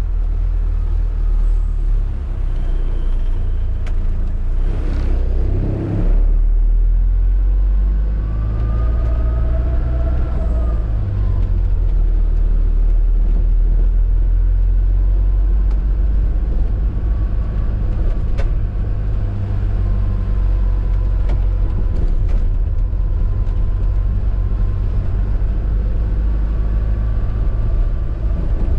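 Classic Hymer motorhome driving slowly, heard from inside the cab: a steady low engine and road rumble, with the engine note rising and falling about ten seconds in and a short rushing burst about five seconds in.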